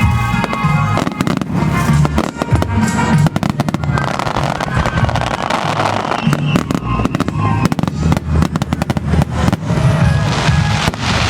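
Aerial fireworks bursting in quick succession: many sharp bangs and crackles over deep rolling booms, with a dense spell of crackling about four seconds in.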